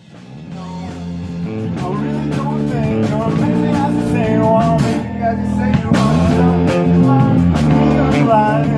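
A rock song with guitar fades in from silence, building to full level over the first two seconds or so.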